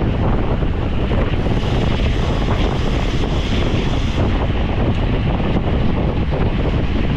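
Steady, loud wind rush buffeting the microphone of a camera moving with a rider at race speed. A brighter hiss is layered on top for a few seconds in the middle.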